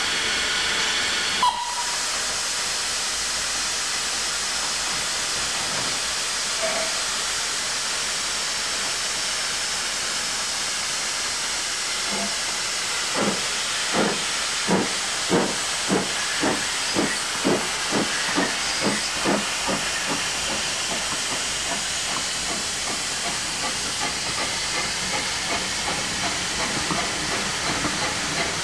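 A1X Terrier 0-6-0 steam tank engine hissing steadily with escaping steam. From about 13 seconds in, a run of about a dozen exhaust beats that come closer together, roughly two a second, as the engine starts away.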